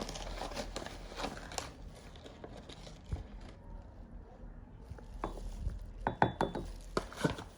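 Light clinks and knocks of kitchen utensils being handled, likely a coffee scoop, mug and sieve, with a cluster of sharp taps about six seconds in.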